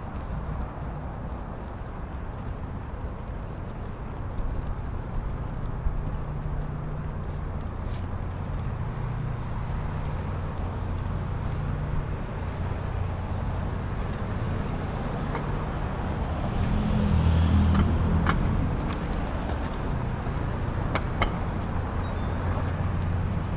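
City street traffic on a Manhattan avenue: a steady low rumble of engines and tyres, with one vehicle passing louder about seventeen seconds in. A few light clicks and taps sound over it.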